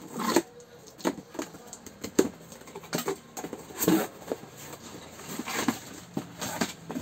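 A cardboard box being opened by hand and plastic-wrapped pressure cooker parts pulled out of it: irregular rustling, scraping and light knocks.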